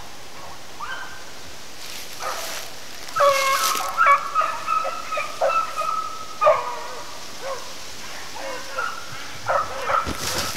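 Beagles baying in the distance, the pack giving voice in a mix of long held howls and short yelps as they run a rabbit's trail.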